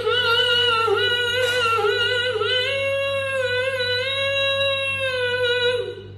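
A person's voice holding one long, high note, sliding up into it at the start and then held nearly level with a slight waver, stopping near the end.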